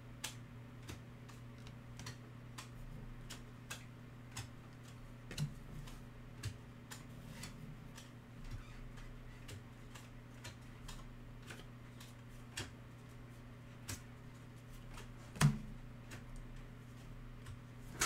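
Panini Elite basketball trading cards being thumbed through a stack one at a time, each card flicking off the pile with a light click. The clicks come at an uneven pace of about one or two a second, with one louder snap about two-thirds of the way through, over a steady low electrical hum.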